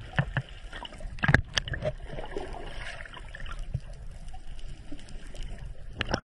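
Water sloshing and gurgling around a swimmer, broken by a few sharp knocks in the first two seconds. It cuts off suddenly near the end.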